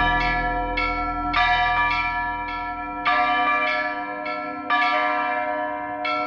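Church bells ringing: several bells struck about twice a second in an irregular pattern, each stroke leaving a long ring. A low backing sound fades out in the first few seconds.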